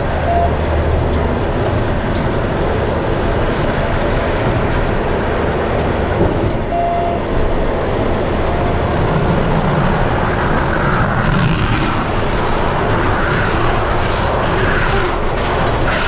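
John Deere 6155R tractor's six-cylinder diesel running steadily, heard from inside the cab, with the John Deere C440R baler-wrapper working behind it. Short electronic beeps sound at the start and again about seven seconds in, and more clattering comes in toward the end.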